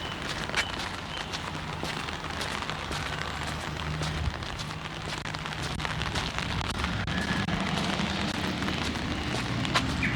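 Steady rain pattering on an umbrella overhead: a dense crackle of drop impacts. A low engine hum from road traffic underneath grows stronger in the second half.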